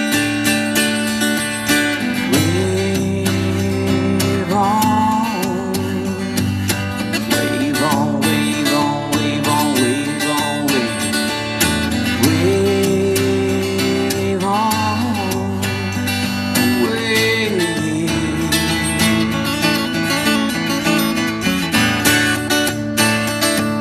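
Acoustic guitar playing a country song live, strummed chords running on without lyrics. Long held melody notes that glide up and down come in over the chords a few times.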